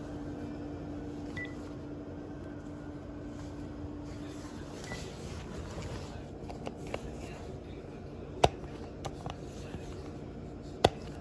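Two short, high key-press beeps from a Panasonic cordless phone handset, a few seconds apart, over a low steady hum that fades out about halfway. Then several clicks, two of them sharp and loud, near the end.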